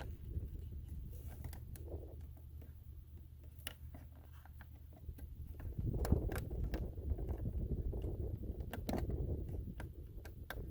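Low, uneven rumble of wind on the microphone, stronger in the second half, with scattered small clicks and taps of handling noise.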